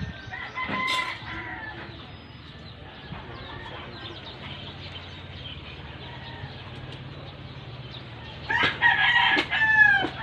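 A rooster crowing: a short call about half a second in, then a louder, longer crow about eight and a half seconds in that falls in pitch at its end. A steady low hum runs underneath.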